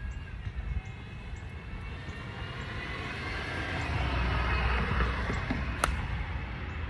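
A golf club strikes a teed ball once, a single sharp crack near the end. Under it, wind rumbles on the microphone and a rushing noise swells and fades.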